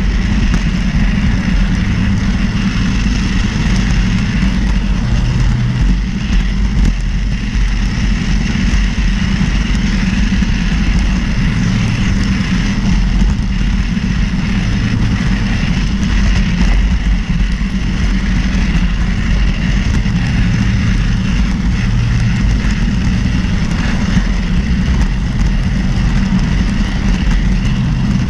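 Bachmann Spectrum HO scale Fairbanks Morse H16-44 model locomotive running on track, a steady low hum of its motor and wheels.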